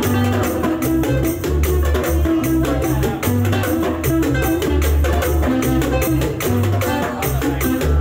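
Live band playing a Latin-style tune: acoustic guitar, electric bass walking through notes, and drums played with sticks over a fast, steady rattling percussion beat.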